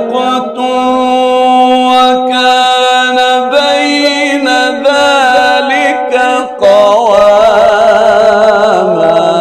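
Solo male voice chanting Quran recitation in the melodic tajweed style, drawing out long held notes with ornamented turns. A brief break comes about two-thirds through, and the next phrase wavers in a quick vibrato.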